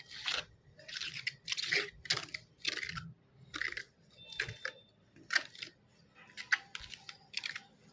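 A series of short, crunchy scraping strokes, about two a second and irregularly spaced, like a tool working a hard gritty or metal surface.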